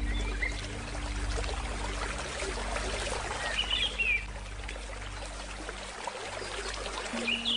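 A river flowing steadily with an even rushing sound. A bird chirps briefly about three and a half seconds in. Low held music tones fade out past the middle, and a new one starts near the end.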